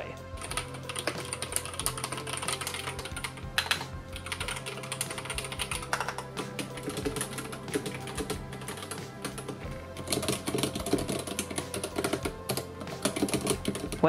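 Fast typing on a Drop mechanical keyboard with Holy Panda tactile switches: a dense, irregular clatter of key clicks. Quiet background music plays underneath.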